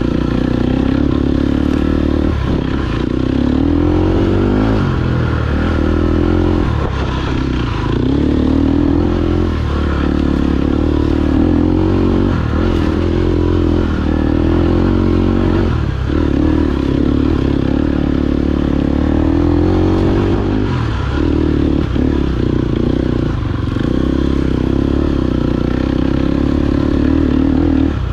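KTM 250 EXC-F single-cylinder four-stroke dirt bike engine ridden off-road, its revs rising and falling with the throttle and dropping off sharply every few seconds.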